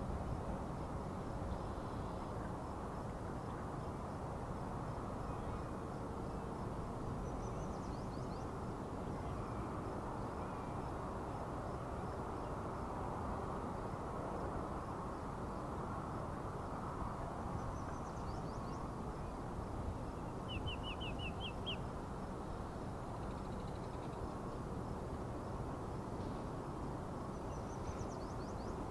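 Steady outdoor rumble of wind on the microphone, with small birds calling now and then high above it, including a quick run of about six chirps about three-quarters of the way through.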